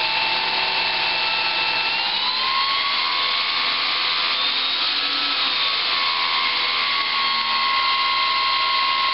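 Brushless electric motor of a ParkZone Super Decathlon R/C plane spinning a Master Airscrew 8x6 three-blade propeller on the bench: a steady whine over the rush of the prop. The pitch rises a little about two to three seconds in, then holds.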